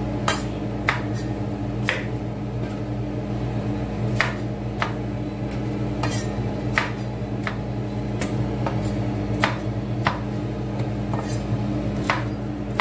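Knife chopping okra on a wooden cutting board: sharp, irregular knocks about one every half second to second, over a steady low hum.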